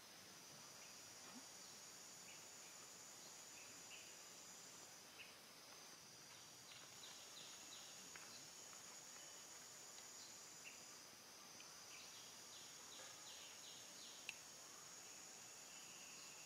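Faint, steady high-pitched insect drone that breaks off briefly now and then, with two short runs of rapid chirps, one about seven seconds in and one near the end.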